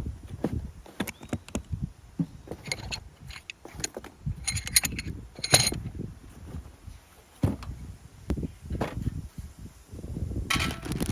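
Camp gear being handled: scattered clicks and a run of short metallic clinks, some ringing briefly, about five seconds in, over a low uneven rumble of wind on the microphone.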